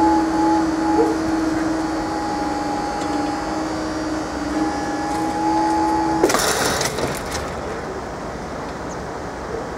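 Level crossing audible warning sounding a steady two-tone alarm while the barriers rise after the train has passed. It cuts off suddenly about six seconds in and is followed by a brief burst of rushing noise.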